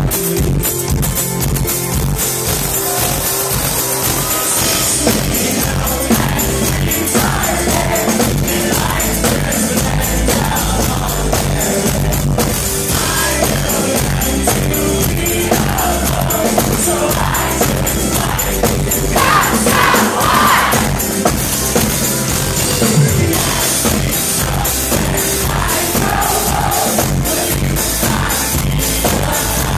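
Live band music played loud through a PA system, with singing over it. The recording was made right next to a speaker, so it buzzes.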